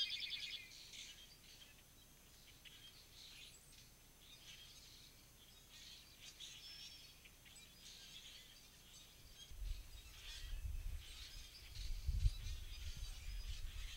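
Many small birds chirping and calling together in a morning chorus, with one louder call at the very start. A low rumble comes in about ten seconds in and continues under the calls.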